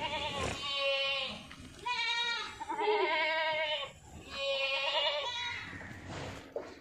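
Gujri goats bleating: about five bleats in a row, each with a quavering pitch.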